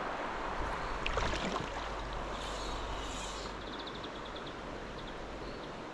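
Shallow, clear stream running over a stony bed in a steady rush, with a few light clicks about a second in and a short run of rapid ticks a little past halfway.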